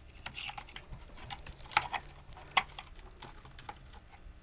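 Light clicks and taps of small plastic parts and screws being handled while a plastic toy tank is taken apart, with two sharper clicks near the middle.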